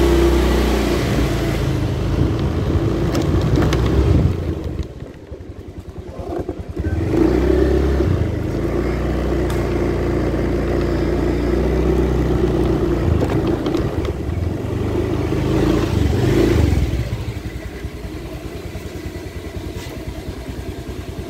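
A Honda Beat scooter's small single-cylinder four-stroke engine is revved with the throttle held open for several seconds. It drops back briefly about five seconds in, revs up again, and settles to idle near the end. The engine is being run to test the newly fitted speedometer cable, which now moves the needle.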